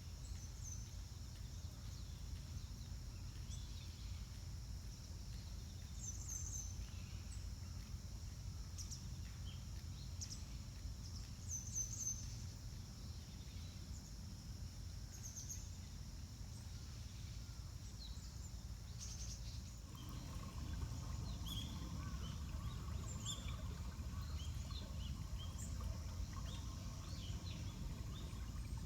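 Outdoor natural ambience: scattered short, high bird chirps over a steady low rumble and a steady high insect-like hiss. About two-thirds of the way through, the low rumble grows louder.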